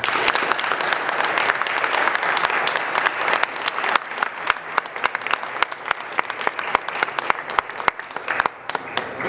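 Audience applauding after a choir song, starting suddenly and loud. The applause is dense at first, then thins to scattered single claps over the last few seconds.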